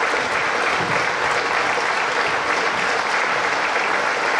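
Large audience applauding, a dense, continuous clapping that holds steady throughout.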